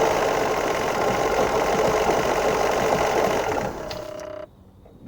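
2011 Ford F-150's 3.5L EcoBoost twin-turbo V6 running with a fast, even rattling knock, the vibrating/knocking noise that the owner is trying to pin down. About three and a half seconds in the noise cuts off, leaving a fainter steady tone that stops a moment later.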